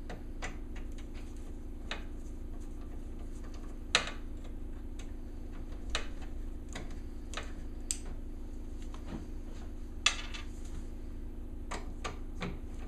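Scattered light clicks and knocks of a video card and computer case hardware being handled, the sharpest about four and ten seconds in, over a steady low hum.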